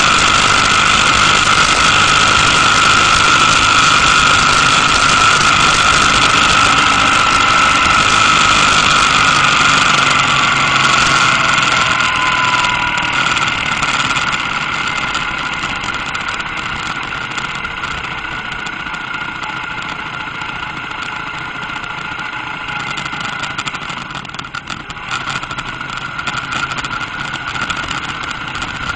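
Motorcycle riding at speed: engine running under a broad rush of wind noise with a steady high whine. About a third of the way in the whine slides down in pitch and the overall sound grows quieter as the bike slows to a lower speed.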